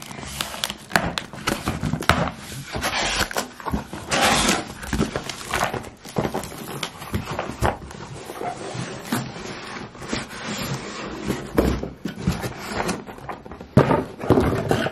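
A cardboard box being opened and handled: irregular rustling, scraping and knocking of cardboard.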